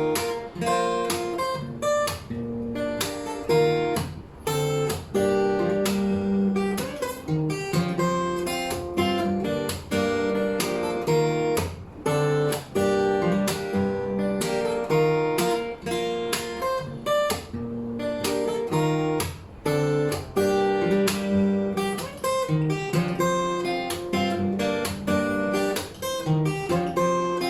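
Solo acoustic guitar played fingerstyle: a steady run of plucked melody notes over bass notes, with occasional strummed chords.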